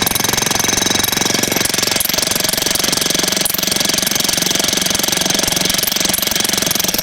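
Jackhammer running continuously with a rapid, even hammering beat, its chisel bit driven down the middle of a red oak firewood round to split it.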